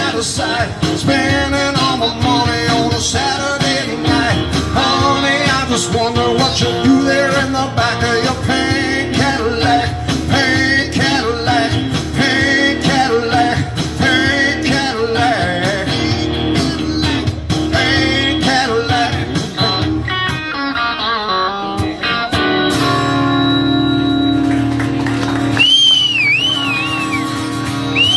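Live band playing an upbeat rock song on acoustic and electric guitars with singing. About 22 seconds in, the song ends on a held, ringing chord, and a few high gliding whistle-like tones come near the end.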